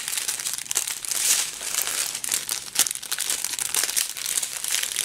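Thin plastic bags of diamond painting drills crinkling as they are handled and folded: a continuous rustle full of small crackles, with one sharper crackle a little past halfway.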